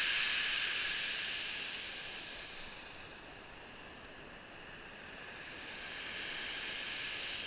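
Sea surf breaking and washing over a shingle beach, a steady hiss that fades after the opening seconds and swells again near the end as the next wave comes in.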